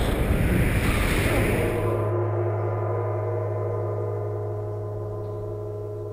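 A deep, ringing gong tone in the soundtrack, sustained and slowly fading. Wind rushes over the microphone for the first two seconds, then drops away.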